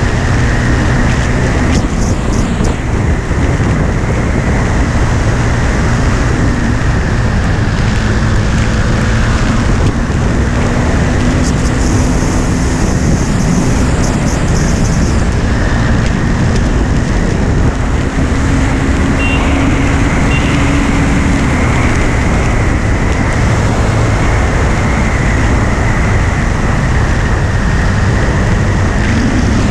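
KTM Duke 390 single-cylinder motorcycle engine running at road speed under heavy wind rush on the camera microphone. The engine note holds fairly steady, drifting slowly up and down.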